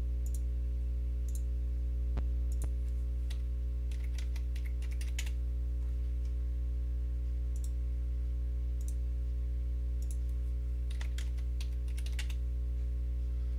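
Computer keyboard and mouse clicks, scattered single taps with short bursts of typing about four and eleven seconds in, over a steady low electrical hum on the recording.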